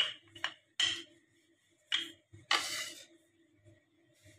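Wooden rolling pin working pizza dough on a floured countertop: a few short knocks in the first second, another about two seconds in, then a longer scrape of the pin rolling over the dough about two and a half seconds in.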